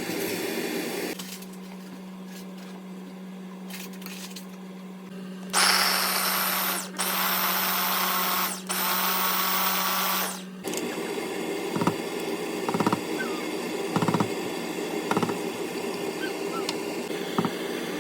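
A small electric motor hums steadily, with three louder whirring spells of a second or two each; it stops about ten and a half seconds in, followed by a few light clicks.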